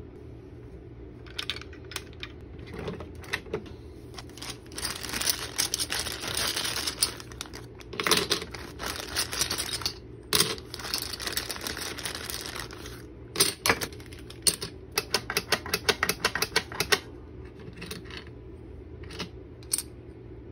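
Hard plastic toy pieces clicking and clattering as they are handled and dropped onto a plastic tray, with a clear plastic bag crinkling. A run of rapid clicks comes in the second half.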